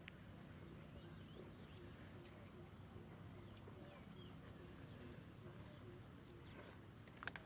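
Near silence: faint rural ambience with scattered soft bird chirps and a steady high insect tone, and a couple of sharp clicks near the end.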